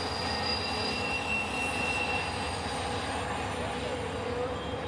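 CSX intermodal freight train rolling past, a steady rumble of cars on the rails with thin, high wheel squeals, some of them gliding in pitch near the end.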